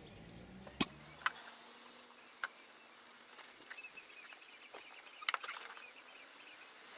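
A few scattered sharp clicks and taps of carpet pieces being handled and fitted, the loudest about a second in and about five seconds in, with faint bird chirps in the background.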